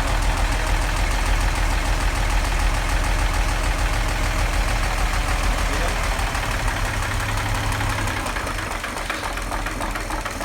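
1940 Chevrolet 216 inline-six engine running at idle, its worn bearings making it knock; oil pressure is low and the engine needs a rebuild. The deep hum eases slightly about eight seconds in.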